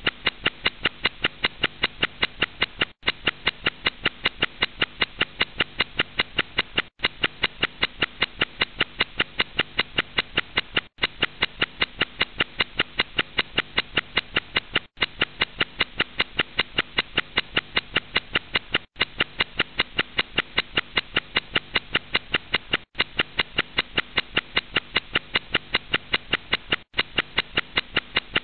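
A buzzy, pitched electronic sound pulsing about four times a second. It repeats as a four-second loop, cutting out for an instant between repeats.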